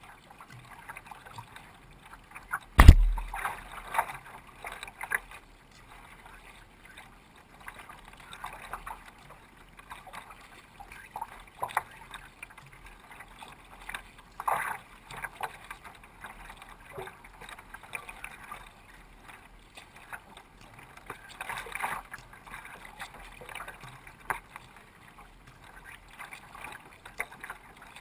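Water splashing and lapping against a sea kayak's hull as it is paddled through light chop, in irregular bursts every few seconds. A single sharp knock, the loudest sound, comes about three seconds in.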